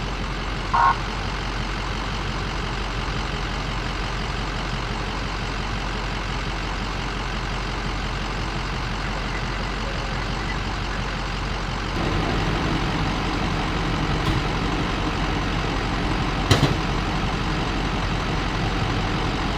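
Steady street noise of a running vehicle engine, with a heavier engine rumble coming in about twelve seconds in. A short beep sounds just under a second in.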